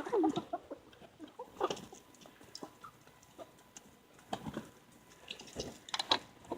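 Chickens clucking softly, with scattered light knocks and rustling.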